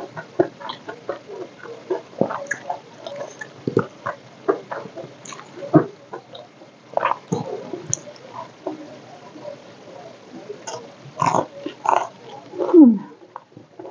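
Close-miked chewing: irregular wet mouth clicks and crunching bites of food, with a short falling tone near the end.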